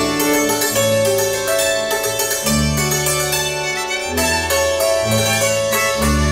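Appenzell folk string music led by a hammered dulcimer (Hackbrett), with violin and a bass line moving note by note beneath it.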